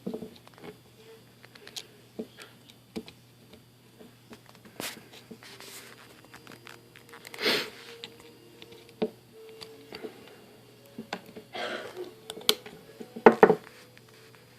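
Scattered small clicks, taps and brief rustles from hands handling a GoPro Hero 4 Session action camera: the SD card going back in and its buttons being pressed. A denser burst of clicks comes near the end, over a low steady hum.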